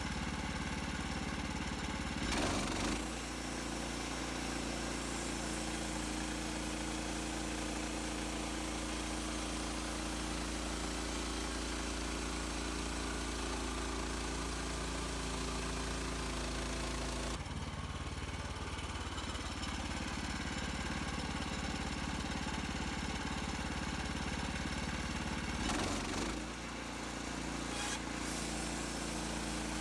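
Woodland Mills HM130 Max portable bandsaw mill running, its small gas engine going steadily while sawing boards from a white pine log. The sound shifts a few times, about two and a half seconds in, around seventeen seconds and near twenty-six seconds.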